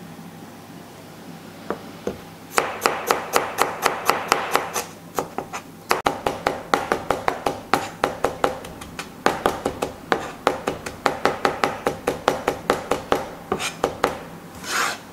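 Chinese cleaver chopping garlic and ginger on a plastic cutting board: a fast, even run of about four strokes a second with a short pause about a third of the way in, then a brief swish near the end.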